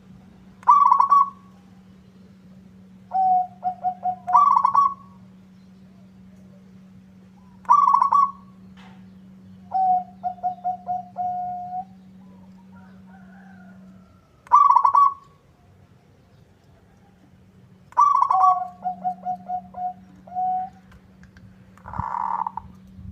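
Zebra dove (perkutut) cooing its song about six times: each phrase opens with a bright higher note and runs on into a quick string of four to six short, lower notes. A steady low hum lies underneath.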